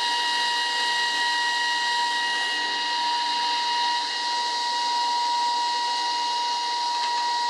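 A woodworking machine running steadily, with a high whine over a hiss. It fades out at the very end.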